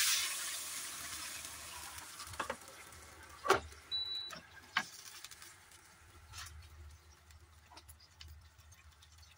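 Water poured into a hot pan of garlic frying in oil, hissing and sizzling loudly at first and dying away over about two seconds. A few sharp knocks of a wooden spatula against the pan follow.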